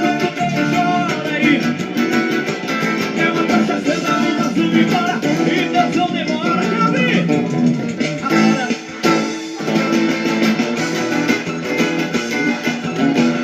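Band music with guitar to the fore.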